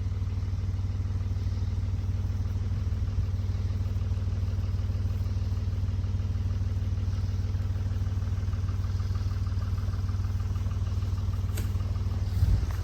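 Tractor engine running steadily with a low, even hum, swelling briefly near the end.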